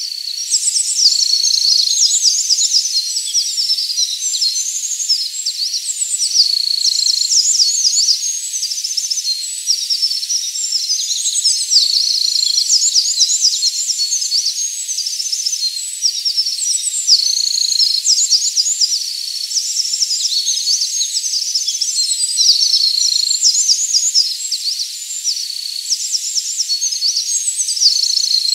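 Eurasian wren singing: long, loud songs of rapid high trills and twittering notes, one after another with short pauses between.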